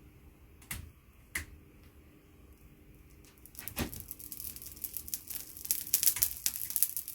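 Overheating electric fan heater, its thermal safety cut-outs bypassed, crackling and ticking: two sharp clicks, then from about three seconds in a quickening run of snaps as the hot element and housing expand, over a faint steady hum.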